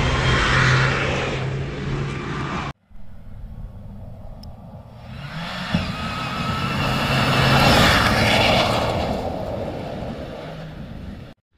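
Rally car engine running at high revs as the car is driven hard past on a loose dirt track, with a hiss of tyres on dirt and gravel. The sound cuts off abruptly just under three seconds in, then a second pass builds to a loud peak about eight seconds in and fades.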